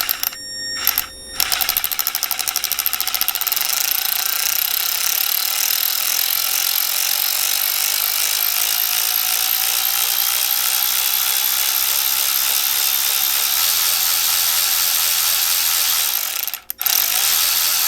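Milwaukee M12 3/8-inch cordless ratchet running free, with no load. A few short trigger pulls come first, then one long continuous run whose pitch shifts as the variable-speed trigger is worked. It stops briefly near the end and starts again.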